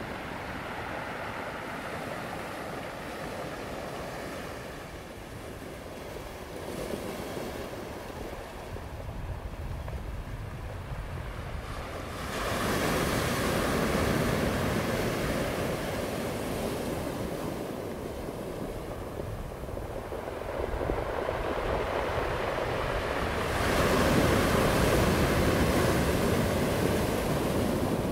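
Ocean waves breaking and washing in: a continuous rush of surf that swells into two louder surges, about twelve seconds in and again near the end.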